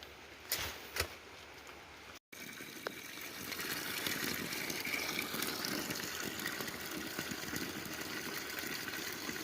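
A couple of footsteps, then after a cut a steady rush of flowing water, like a river or stream running fast.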